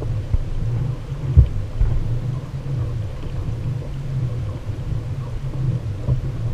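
Wind buffeting the action camera's microphone: an uneven low rumble, with one sharp thump about a second and a half in.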